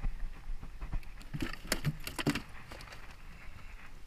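A quick run of sharp clicks and rattles, like loose metal jangling, about a second and a half in, over a steady low rumble.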